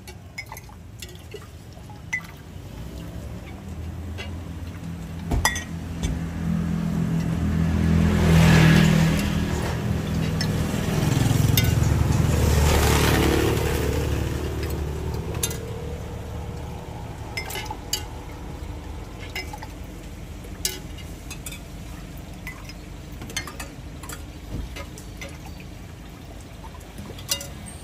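Glass mugs and a metal ladle clinking lightly and repeatedly as drinks are ladled from big glass jars. A motor vehicle passes by in the first half, its rumble swelling and fading as the loudest sound.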